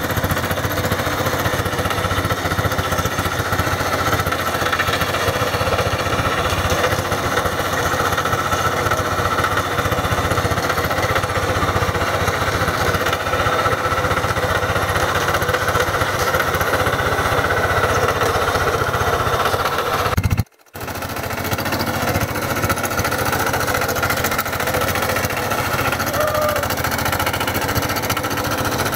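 Walk-behind two-wheel hand tractor's single-cylinder diesel engine running steadily under load, driving a rotary tiller through dry clods of soil. The sound drops out for a moment about two-thirds of the way through.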